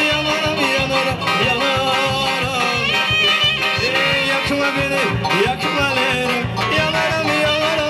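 Live band music with a steady drum beat: a bowed spike fiddle with sliding melody lines over strummed acoustic guitar and keyboard.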